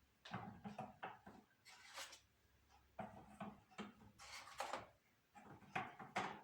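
Quiet, irregular knocks, clicks and rustles of objects being handled, in several short clusters.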